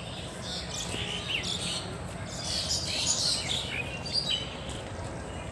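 Several birds chirping in short, overlapping calls and trills, over a steady low background noise.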